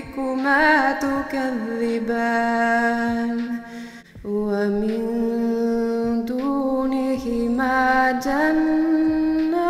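Solo voice in melodic Quran recitation (tajweed), chanting Arabic on long drawn-out notes with ornamented turns in pitch, with a short break for breath about four seconds in.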